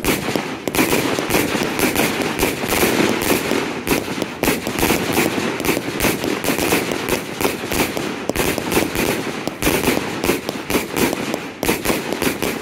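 Thunder King 100-shot firework cake firing, a dense, unbroken run of bangs and crackling with no pause.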